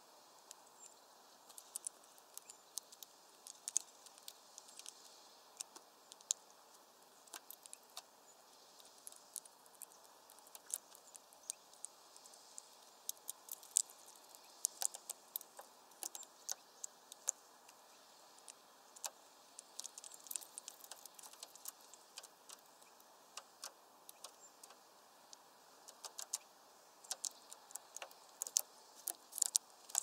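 Scattered light clicks and taps, irregular and sometimes in quick clusters, over a faint steady hiss.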